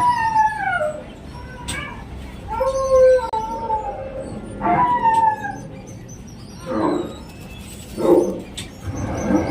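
Animal calls played by an animatronic exhibit: a series of pitched cries that fall in pitch, three longer ones in the first five seconds, then two shorter ones near the end.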